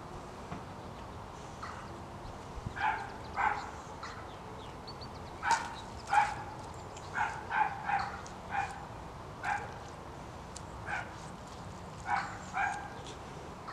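A dog barking: about a dozen short barks in uneven ones and twos.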